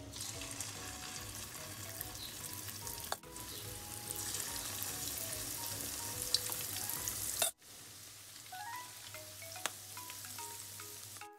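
Sweet corn fritter batter sizzling and crackling as spoonfuls deep-fry in hot oil in a wok. The frying drops off abruptly about seven and a half seconds in, leaving it quieter under light background music.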